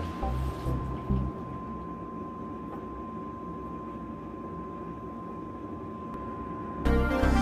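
Background music fades after about a second, leaving a steady hiss with a faint constant high tone; the music comes back abruptly near the end.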